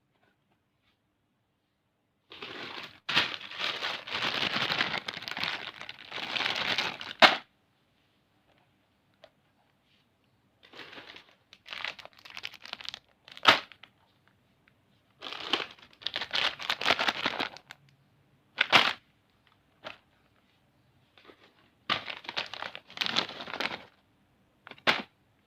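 Plastic candy wrappers and packets crinkling as they are handled, in four bursts with quiet gaps between. Each burst is followed by a sharp crack, and the cracks are the loudest sounds.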